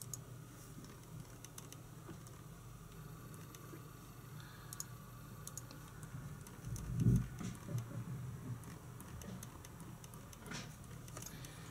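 Scattered light clicks of a computer mouse and keyboard. A low muffled thump about seven seconds in is the loudest sound.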